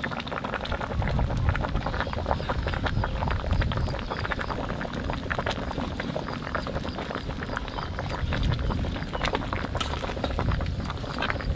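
A large aluminium pot of vegetable khichuri boiling hard, a dense run of bubbling pops over a low rumble.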